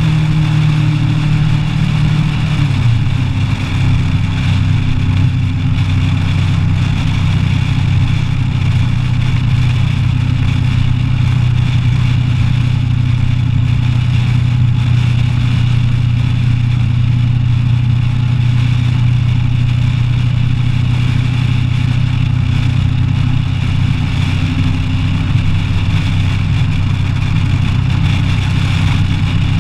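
Kawasaki ER-6n's parallel-twin engine running at a steady cruise under way, over wind noise. The engine note drops about two to three seconds in, then holds steady.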